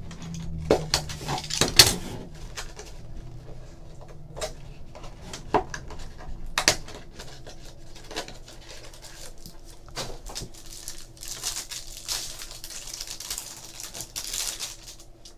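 A small cardboard trading-card pack being cut open with a box cutter and handled: scattered clicks and taps as the cardboard is cut and the inner tray slid out, then a soft, steady rustling in the last few seconds as the cards are pulled from their wrapping.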